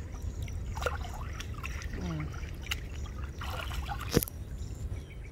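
Pond water splashing and sloshing around a person wading waist-deep while handling a gill net, in several short splashes. A sharp splash about four seconds in is the loudest sound.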